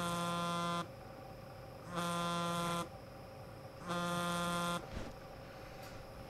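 Mobile phone ringing with an incoming call: three identical buzzy ring tones, each a little under a second long, about two seconds apart.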